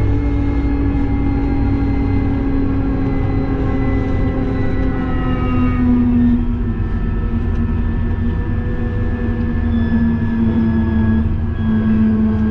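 Fendt 828 Vario tractor's six-cylinder diesel engine and drivetrain running steadily under load, heard from inside the cab: a low drone with whining tones that drift slowly lower in pitch.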